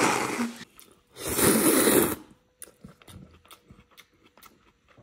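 A person slurping noodles from a bowl of soup for about a second, then faint chewing and small clicks of a fork and spoon against the bowl.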